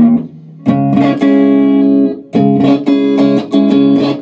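Electric guitar strummed chords on the clean channel of a Hughes & Kettner Statesman Dual EL6 valve combo, played through a Jet City Jettenuator power attenuator turned down low to about room volume. The chords ring on between strokes, with a brief pause near the start and another about halfway through.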